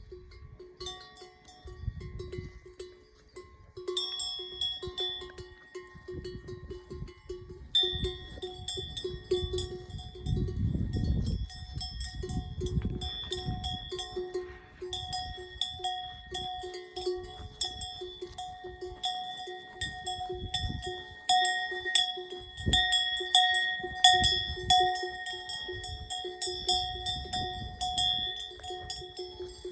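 Cowbells on grazing cattle clanking unevenly and continually as the animals move, with a low rumble for a few seconds around the middle.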